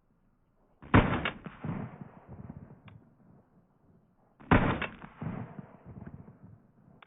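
Two shots from a CZ P01 Omega 9mm pistol, about three and a half seconds apart, each followed by an echo that rolls away over about two seconds.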